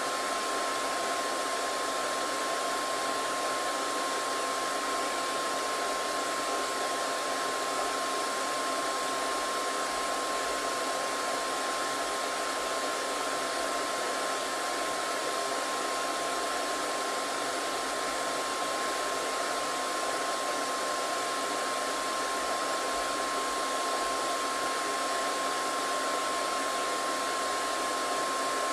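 Hair dryer running steadily: an even blowing noise with a constant whine from the motor, unchanging throughout.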